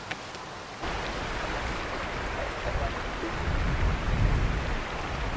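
Wind gusting on the microphone over a steady rushing noise, starting abruptly about a second in, with a low rumble that swells near the middle.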